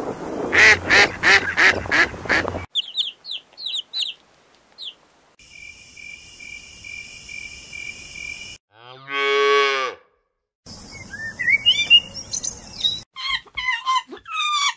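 A run of different animal sounds. It opens with Canada geese honking in a quick series for about two and a half seconds, followed by scattered high chirps. A snake then hisses steadily for about three seconds, then comes one loud drawn-out call, and more chirps and calls follow near the end.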